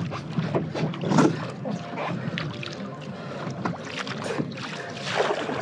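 Water splashing and sloshing around a stand-up paddleboard as it is paddled: irregular paddle strokes and wavelets slapping the board. The splashes are loudest about a second in and again near the end.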